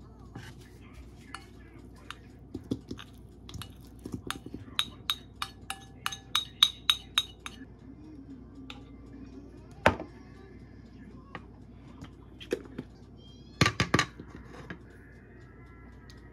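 Kitchen handling clatter: scattered taps and clinks of wooden chopsticks and a wooden spoon against a coconut-shell bowl as cut steamed kabocha squash is put in and mixed. In the middle comes a quick run of about ten ringing clicks, then a single louder knock and, later, a brief clatter.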